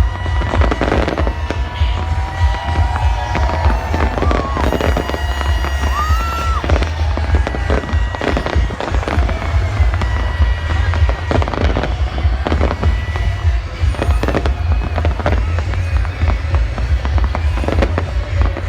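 Fireworks shells bursting in a dense, continuous barrage, many bangs in quick succession over a steady deep rumble.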